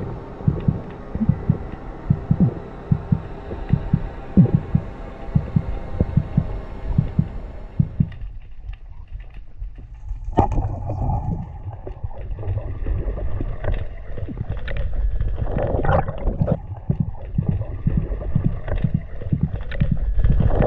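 Muffled underwater sound through a camera housing on a speargun: low irregular thumps, then a single sharp crack about ten seconds in as the speargun fires, followed by rushing water.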